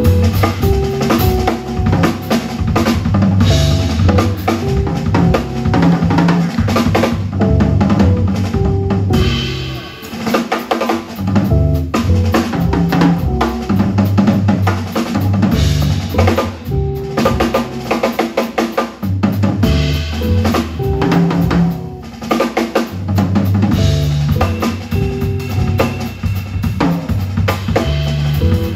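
Jazz trio of guitar, upright bass and drum kit playing live, the drum kit loudest, with snare, bass drum and cymbal strokes over the bass line.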